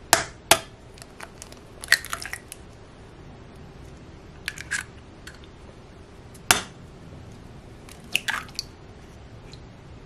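Two eggs cracked one after the other into a glass measuring cup: a few sharp taps and cracks of the shells, the sharpest about six and a half seconds in, with small clicks of shell and glass between them.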